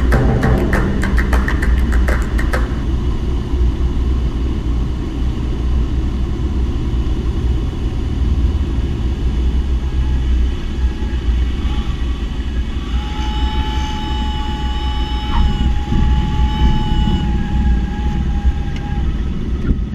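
Cessna 172 cabin noise: the piston engine and propeller running with a steady low drone, with the end of a music track in the first couple of seconds. In the second half a steady high tone sounds over the drone for about six seconds.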